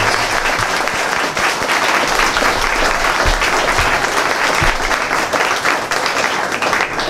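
Audience applauding, steady clapping from a room full of people.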